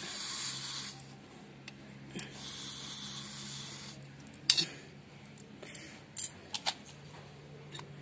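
Metal scissors tapping and scraping against an immersion water-heater element in a steel pot of water. There are two hissing stretches of about a second each in the first half, then several sharp metallic clicks, over a faint steady low hum.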